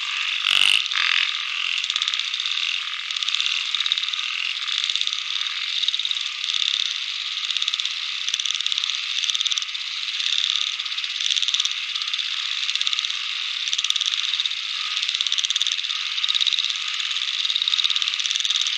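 Dense chorus of frogs calling, a steady pulsing din with no break.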